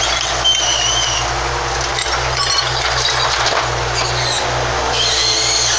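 JCB 803 Plus mini excavator's diesel engine running steadily under load. Short high squeals come about half a second in and again near the end.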